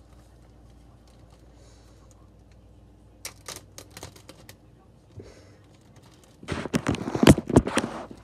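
Clear plastic bag crinkling as it is handled: a few sharp crackles about three seconds in, then a louder, longer run of crinkling from about six and a half seconds in until just before the end.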